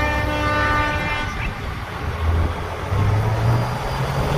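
Truck air horn sounding one steady blast of about a second and a half, followed by a heavy truck engine rumbling and pulling, its pitch rising a little about three seconds in.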